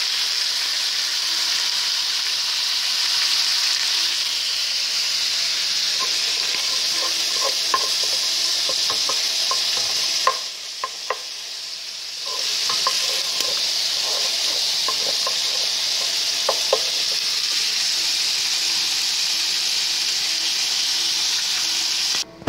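Meat sizzling in a hot frying pan. From about six seconds in, a wooden spoon clicks and scrapes against the pan as crumbled pork sausage is stirred. The sizzle drops briefly near the middle.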